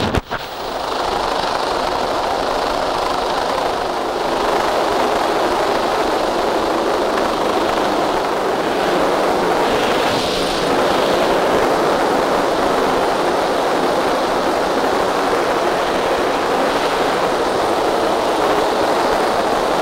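Coastguard search-and-rescue helicopter hovering low overhead: a steady, loud rush of rotor noise and downwash buffeting the microphone.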